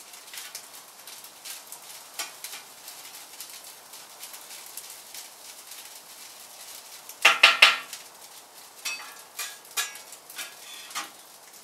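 Metal cookware and utensils clattering: light clicks and taps throughout, with a loud burst of ringing metallic knocks about seven seconds in, then a few more taps.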